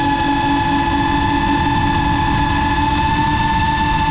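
GEPRC Mark 5 FPV quadcopter's brushless motors and propellers whining at a steady high pitch in flight, over a rush of wind, as the quad holds an even throttle.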